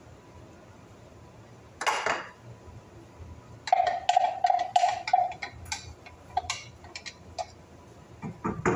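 Blended sauce being tipped out of a blender jar into a steel pot, the jar knocked and scraped out. A run of quick clicks and taps from about four seconds in, with a steady squeaky tone under the first of them.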